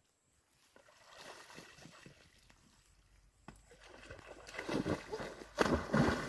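Shallow pond water splashing and sloshing as water is bailed out with a bucket and thrown. The splashes are irregular and grow louder, with the loudest near the end.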